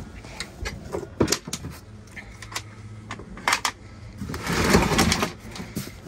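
Knocks and clatter of equipment and cases being shifted about on a van's metal floor, with a scraping rustle about four and a half seconds in and a steady low hum in the middle.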